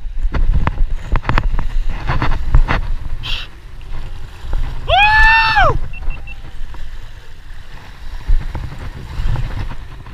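Waves washing over a rock ledge and wind on the microphone, with scattered sharp clicks and knocks. About five seconds in, one loud high cry, rising then falling, about a second long.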